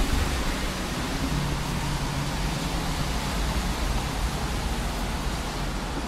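Steady rushing noise, even across the range from low to high, with a low hum underneath.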